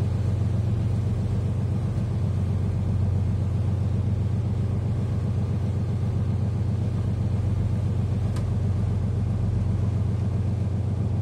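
Fishing boat engine running steadily under way: a constant low drone that holds the same pitch and level throughout.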